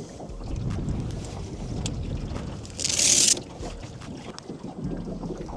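Wind buffeting the microphone: a low, steady rumble, with one brief, loud hiss lasting about half a second near the middle.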